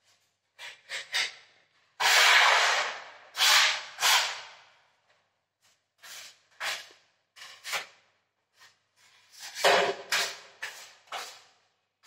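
Putty knife scraping wall putty across a painted plaster wall in a series of strokes: two long, loud strokes about two seconds in, then shorter ones later.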